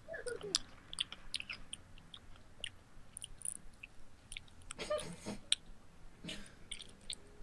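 Quiet chewing with a run of small wet mouth clicks: someone eating fruit. A short falling squeak sounds at the very start, and two louder breathy bursts come about five and six seconds in.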